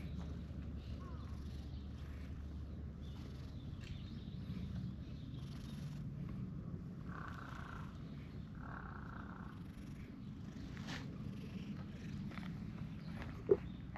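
Tortoiseshell cat purring steadily as it is stroked, with a short sharp tap near the end.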